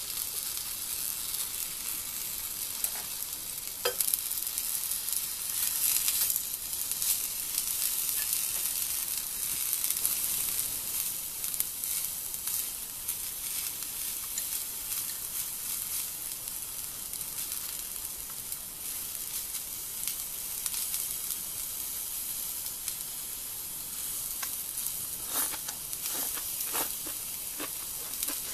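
Cabbage, onion and enoki mushrooms sizzling steadily in a cast-iron pan, with a few light clicks about four seconds in and again near the end.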